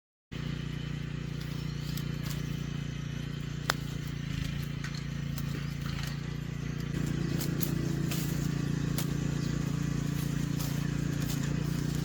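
A steady low mechanical drone with a few light clicks over it, growing louder about seven seconds in, after a brief moment of total silence at the start.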